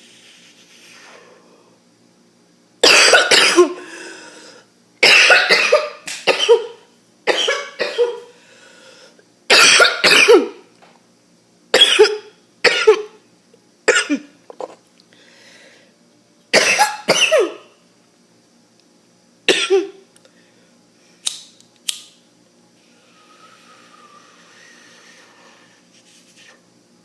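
A person coughing in a harsh, choking fit. Loud coughs in quick pairs start about three seconds in and come every second or two. They thin out to two short, quieter coughs near the end.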